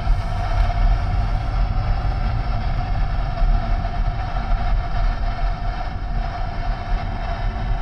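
Car cabin noise while driving slowly: a steady low road and engine rumble with a constant mid-pitched hum over it.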